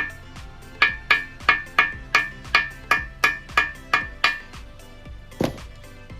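Hammer blows on a metal part, about three a second, each one ringing; they pause briefly near the start and stop a little past two-thirds of the way through. One duller, deeper knock follows near the end.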